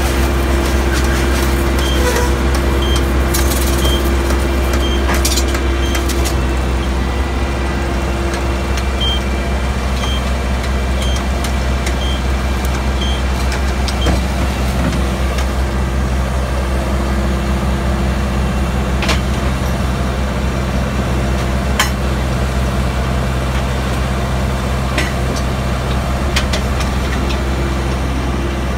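Engine-driven alfalfa silage baling and wrapping machine running steadily: a deep, even engine drone with machinery hum. In the first half there are two runs of short, high beeps, about one a second, and a few sharp clicks.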